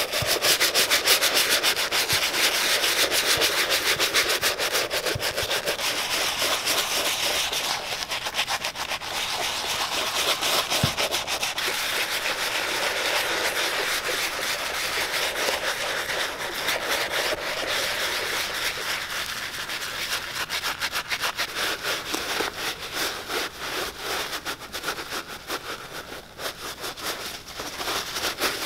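Saphir bristle brush scrubbing saddle-soap lather into the dry, cracked leather of a 1930s baseball cleat, in quick back-and-forth strokes, growing softer near the end.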